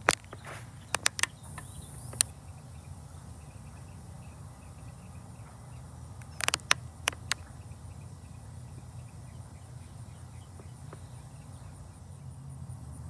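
Outdoor ambience: a steady low rumble with a faint, high-pitched chirp repeating at an even rate in the second half. A few sharp clicks sound in the first two seconds, and a short cluster of them about six and a half seconds in.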